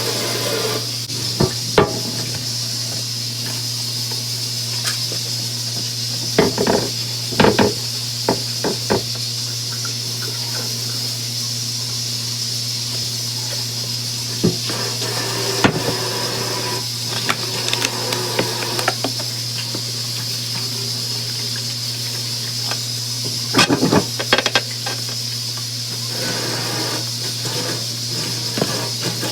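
Kitchen sounds: a steady hiss over a low hum, with scattered clinks and knocks of dishes and utensils, some in quick clusters.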